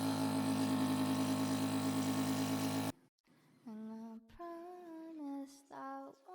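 Background music: a steady drone that cuts off abruptly about three seconds in, then a voice humming a melody.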